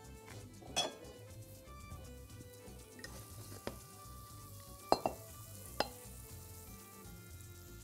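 Metal tongs clacking and scraping against a nonstick frying pan and a serving plate as vermicelli is lifted out. There are a handful of sharp clacks, the loudest a close pair about five seconds in.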